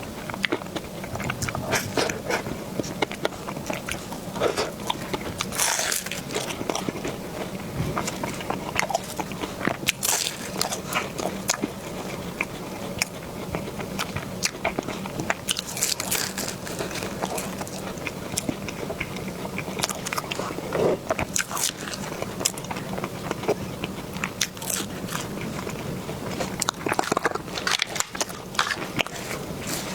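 Close-miked eating: repeated bites and chewing with crisp crunching and crackling, irregular and continuous throughout.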